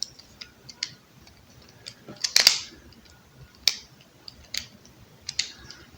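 Plastic extension-cord plug and screwdriver being handled as the plug's terminal screws are checked for looseness: scattered sharp clicks and taps, the loudest about two and a half seconds in.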